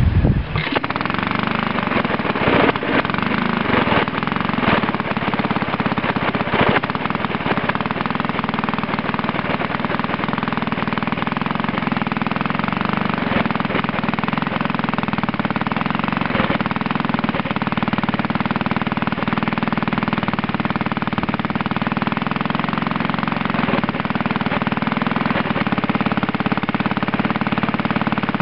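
Villiers Mk 15 small stationary petrol engine catching just after a pull start, then running steadily, on its first run in four years. A few sharp knocks come in the first several seconds before the running evens out.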